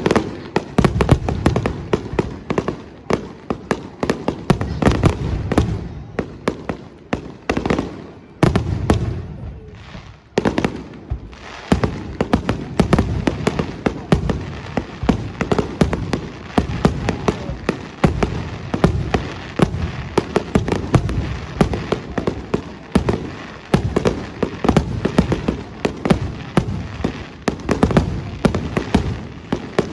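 Fireworks display: a rapid, continuous barrage of bangs and crackles, with a short lull about nine to eleven seconds in before it picks up again.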